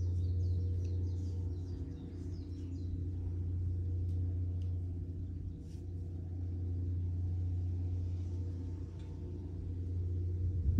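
A steady low hum that swells and fades every three to four seconds. Small birds chirp faintly over it in the first few seconds.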